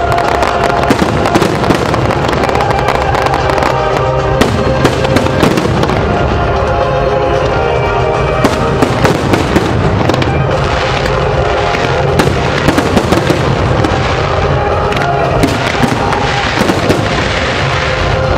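Aerial fireworks bursting with frequent bangs and crackling, over loud show music playing along with the display.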